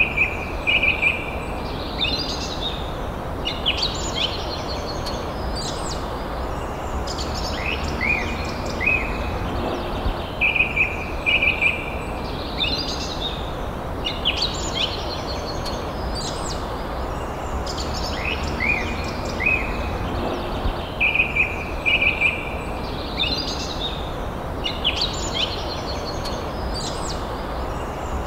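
Birds calling and chirping, short whistled notes and quick falling chirps, over a steady background hiss; the same run of calls comes round about every ten seconds.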